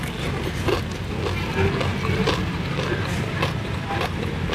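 Close-up chewing of fried tofu wrapped in perilla leaves, with scattered short mouth clicks, over a steady low rumble.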